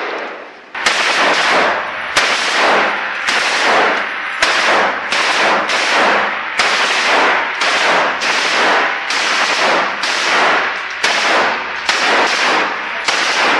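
Gunfire from rifles and a light machine gun fired inside a room: a steady string of loud shots or short bursts, a little more than one a second, each ringing on off the walls.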